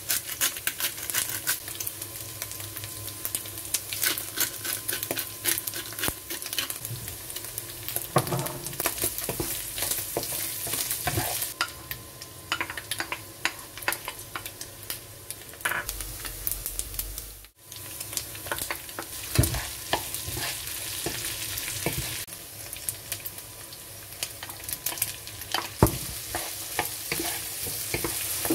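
Minced pork and diced vegetables sizzling in a nonstick frying pan, stirred with a wooden spatula that scrapes and knocks against the pan in frequent sharp clicks. The sound breaks off briefly about two-thirds of the way through.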